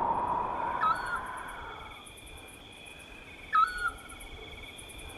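Eurasian scops owl giving its short whistled single note twice, about three seconds apart, over a steady trilling of crickets. A wavering tone fades out in the first two seconds.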